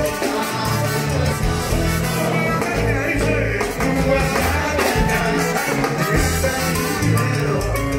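Cuban salsa band playing live: a man singing lead into the microphone over keyboard, drums and percussion, and horns, with a repeating bass line.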